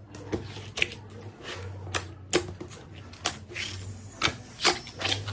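Slime being squeezed and pressed by hand, giving a string of irregular sharp clicks and pops, over a low hum.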